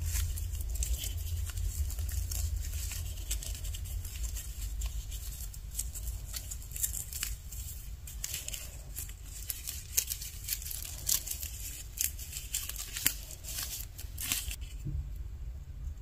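Small plastic toy clothes hangers clicking and tapping as a little cloth doll dress is fitted onto a hanger and hung on a plastic toy rack, with the rustle of the fabric. Many light, irregular clicks over a low background rumble.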